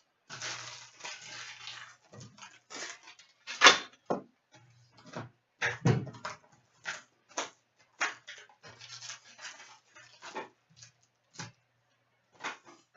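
A trading card pack wrapper being torn open and crinkled, then cards being handled and shuffled: a run of sharp rustles, snaps and clicks, the loudest about four seconds in.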